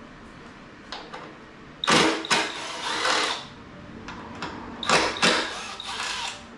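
Cordless power tool running in short bursts on the motorcycle's bolts: two pairs, each a brief burst then one of about a second, the first pair about two seconds in and the second about five seconds in.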